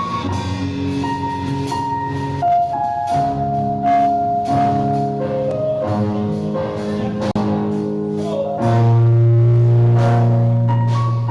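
Instrumental church music: held keyboard chords with light drum and cymbal strikes, a louder low bass chord coming in about three quarters of the way through.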